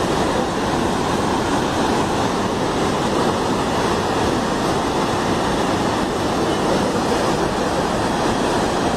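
Waterfall in heavy flow: a steady, unbroken rush of falling water.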